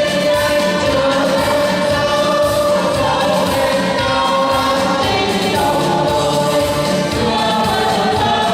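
A choir singing a Vietnamese march song in held notes over a steady rhythmic instrumental backing.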